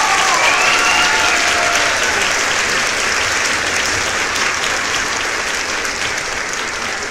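A crowd applauding, dense and steady, easing off slightly toward the end.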